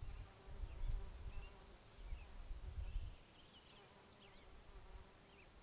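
Faint, steady buzzing of a flying insect, with short bird chirps scattered over it. There is a low rumble under the first three seconds.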